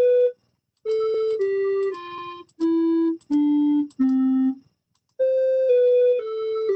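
Synthesized beeping tones from the micro:bit MakeCode melody editor on the computer, one note at a time, each about half a second and each a step lower, as notes are placed down the grid. About five seconds in, after a short pause, the finished eight-note melody starts playing, stepping down the same descending scale at 120 beats per minute.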